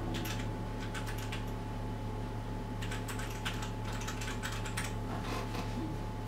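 Typing on a mechanical keyboard: quick runs of key clicks, a pause of about a second and a half, then another run and a few scattered keystrokes, over a steady low hum.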